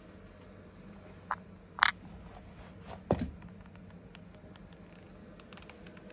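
A few short knocks and clicks of movement over a steady low hum: a sharp click about two seconds in is the loudest, then a low thump about a second later, and faint small ticks near the end.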